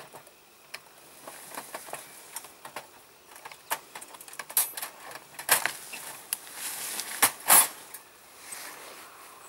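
Hessian sack rustling and a wire-mesh live trap rattling, with scattered scrapes and knocks, as a squirrel is moved from the trap into the sack. It grows busier partway through, with the sharpest knocks twice in the second half.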